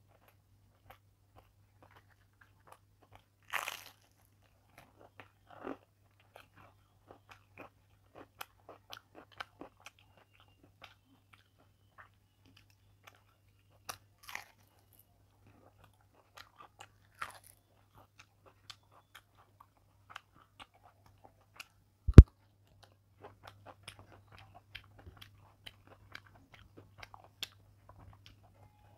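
Close-miked eating sounds: scattered wet clicks of hand-mixed rice and chewing, with a few louder crunches as crisp fried bok phool (hummingbird-tree flower) fritters are bitten. One sharp knock about two-thirds of the way through is the loudest sound.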